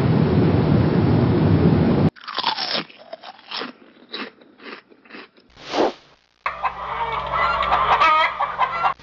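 Edited sound effects: a steady rushing noise that cuts off about two seconds in, then a run of crisp crunching bites into fried-chicken crust, a whoosh, and chicken clucking over a low hum, ending in another whoosh.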